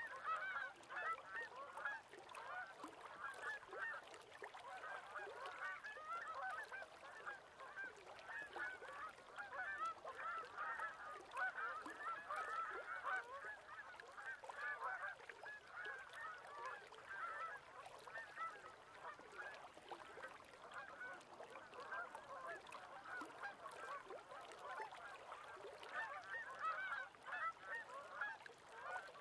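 A flock of geese calling continuously: a dense chorus of many overlapping short honks.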